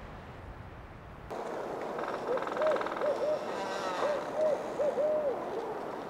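Barred owl giving its who-cooks-for-you-all hooting call, a spring courtship call: two phrases of rhythmic, slurred hoots. It follows a second of low rumble at the start.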